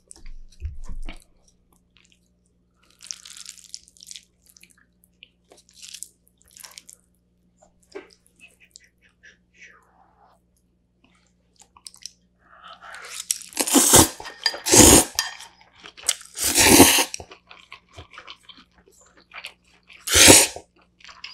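Close-miked eating: soft, scattered chewing for the first half, then several loud slurps of spicy cold noodles (bibim naengmyeon) a second or two apart in the second half, the last one near the end.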